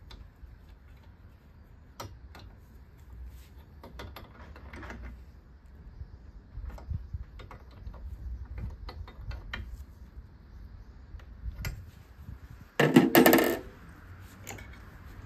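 Light metallic clicks and clinks from hands and tools working on a two-stroke racing outboard's powerhead. About 13 seconds in comes one loud, short burst with a ringing, pitched edge, lasting under a second.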